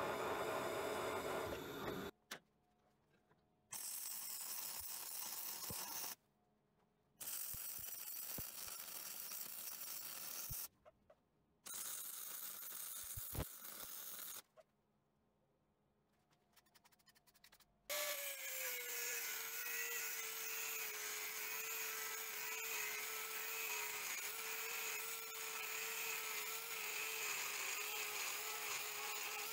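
A drill press drilling steel plate stops about two seconds in. Then come several short bursts of welding a few seconds each, with breaks between them, as plug welds are laid through the drilled holes. From about eighteen seconds, an angle grinder's cut-off disc cuts steel flat bar: a steady whine that sags slightly in pitch as the disc bites, then holds.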